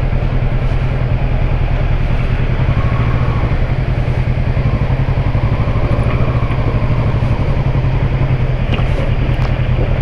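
Kawasaki Versys 650's parallel-twin engine running at low revs, a steady pulsing rumble, as the motorcycle rolls slowly over cobblestones.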